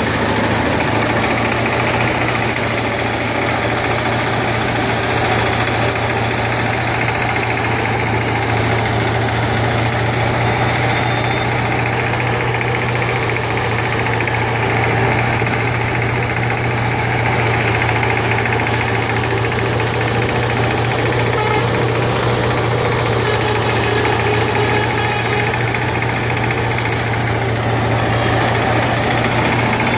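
Engine-driven paddy thresher running steadily: a small engine drives the threshing drum as bundles of rice stalks are fed in and the grain is stripped off, with a constant low hum.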